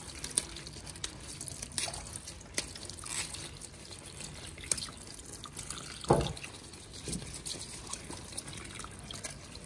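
Kitchen tap running into a steel sink over a pot of cocoyam (kontomire) leaves. Scattered small clicks and snaps come from wet hands working the leaves and stems, and there is one louder dull thump about six seconds in.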